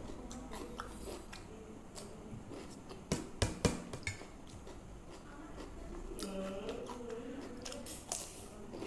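A spoon clinks and scrapes in a steel bowl of yogurt, with three sharp clinks about three seconds in, alongside soft eating sounds.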